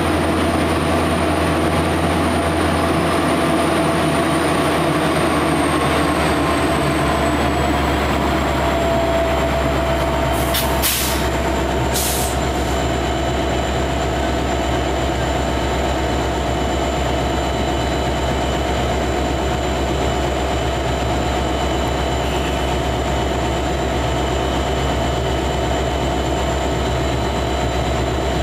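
Passenger train slowing: steady running noise with a whine that slides down in pitch over the first several seconds and then holds steady. Two short hisses come about 11 and 12 seconds in.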